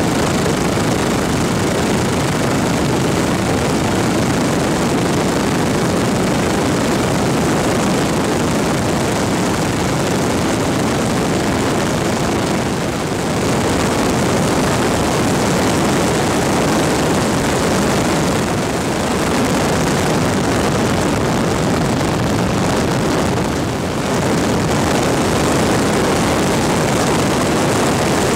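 An engine running steadily, with three brief dips in level.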